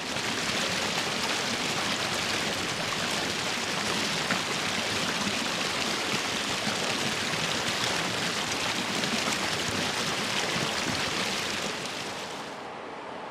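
A river or stream rushing steadily. Near the end it changes abruptly to a quieter, duller rush.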